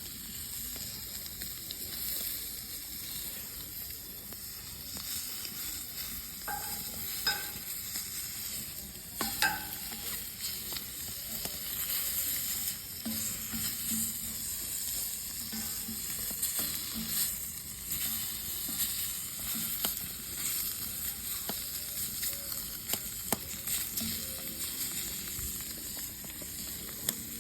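Scallops sizzling as they sear over a hot wood fire: a steady hiss with scattered short pops.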